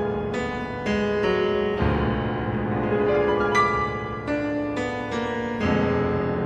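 Background piano music: a slow melody of struck notes over sustained chords, a new note about every half second to a second.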